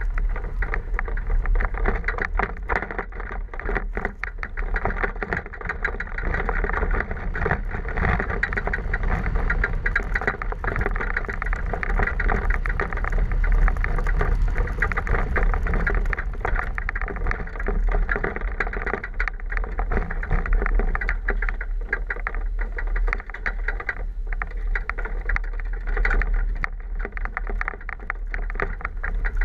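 A four-wheel-drive vehicle driving along a rough dirt road, heard from inside: steady low rumble of engine and tyres with a constant scatter of small knocks and rattles.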